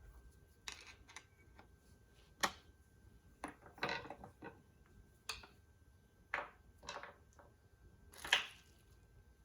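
Hand tools clinking and tapping on metal parts: about a dozen separate sharp clicks and clanks at irregular intervals, the loudest near the end.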